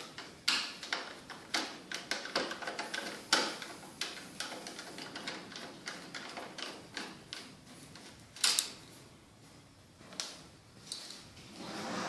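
Irregular metallic clicks and knocks of a screwdriver working bolts out of a dishwasher's metal side panel, with one louder knock about eight and a half seconds in.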